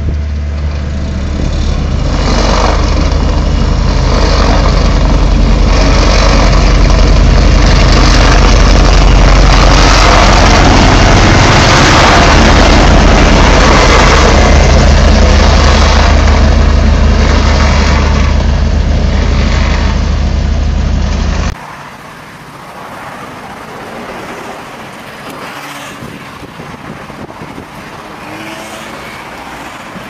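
Asphalt paver's diesel engine running steadily close by, a loud low drone with machinery noise over it. About 21 seconds in it cuts off abruptly to quieter street traffic noise.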